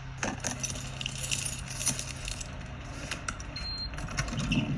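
Keys jangling, with a string of light metallic clicks and jingles over a low steady hum.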